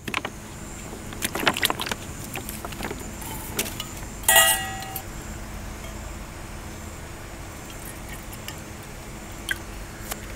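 Light metallic jangling and clicking, with a short pitched beep about four seconds in, over a steady low hum.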